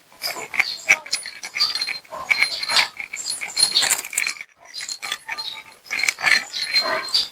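Cat eating a treat: a busy run of chewing and smacking clicks, with a short break about four and a half seconds in.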